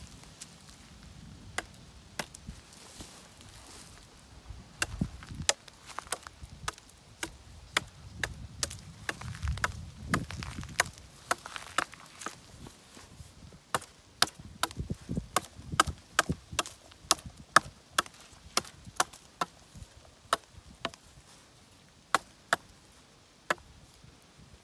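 Northern Woodsman Elite knife chopping into the end of a green sapling pole: a long series of sharp strikes, sparse at first and then about one to two a second, tapering the pole to a point.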